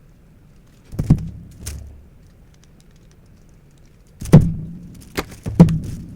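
Metal CZ Shadow 2 pistol parts being handled: a couple of knocks about a second in, then a louder run of sharp clacks and knocks in the last two seconds.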